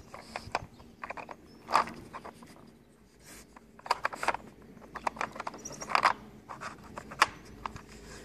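Plastic pieces of a Nina Ottosson Dog Brick puzzle toy clicking and scraping as a dog's nose pushes the sliding lids and tips the cones. The knocks are scattered and irregular, a few of them sharper than the rest.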